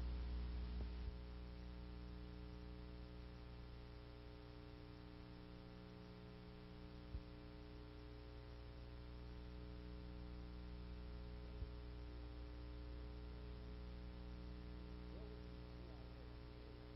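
Faint, steady electrical mains hum with many overtones. The tail of music dies away in the first second, and there are two tiny clicks, about seven and eleven and a half seconds in.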